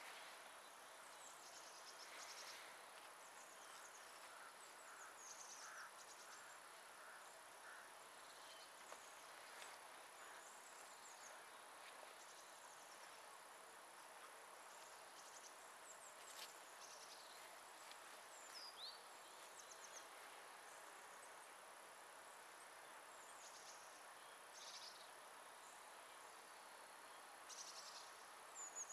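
Near silence: faint, scattered high-pitched chirps of small birds over a steady hiss, some calls sliding down in pitch, with a small cluster near the end.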